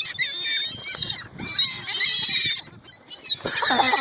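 A flock of gulls calling all at once at close range, many high squealing calls overlapping as they beg for bread. The level dips briefly about three seconds in.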